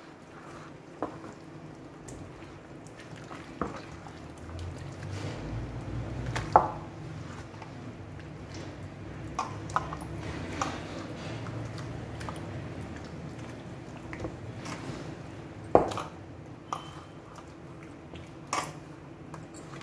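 Hands kneading thick wet marinade into a raw mutton leg in a plastic tub: squelching and squishing, with sharp clicks and clinks now and then, the loudest about six and a half and sixteen seconds in, over a faint steady hum.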